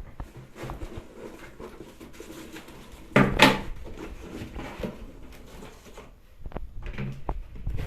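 Unboxing handling noises: packaging and parts being moved about, with scattered clicks and knocks and a louder clatter about three seconds in.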